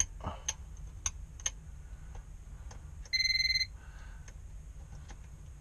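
Non-contact AC voltage detector pen giving one short, steady electronic beep about three seconds in, which signals live voltage at the light socket. A few light clicks come before it.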